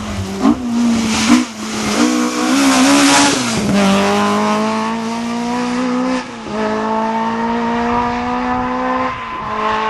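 Rally car engine accelerating hard through the gears. After a loud rush of noise in the first few seconds, its pitch climbs steadily and drops sharply at two upshifts about three seconds apart.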